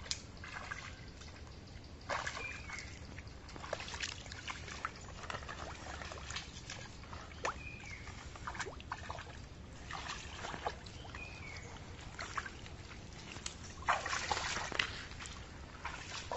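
Shallow muddy water sloshing and splashing in scattered bursts as a person wades and gropes with the hands along the bottom, with a louder stretch of splashing near the end.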